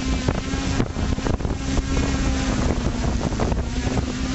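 Small multirotor FPV drone's electric motors and propellers running with a steady hum, close to the microphone, with wind buffeting it.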